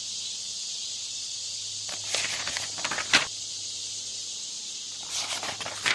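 Steady hiss and low hum from a poor public-address broadcast, with short scratchy crackles about two seconds in, around three seconds and again near the end.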